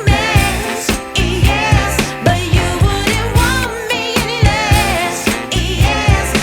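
Background pop music with a steady beat and a singer's voice.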